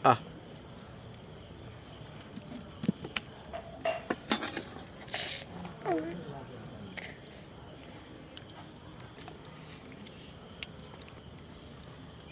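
Insects chirring as a steady high-pitched drone, with a few light clicks and knocks in the middle.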